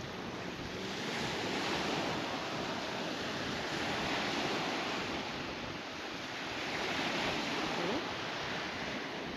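Small waves breaking and washing up a sandy lake shore: a steady wash that swells and eases every few seconds.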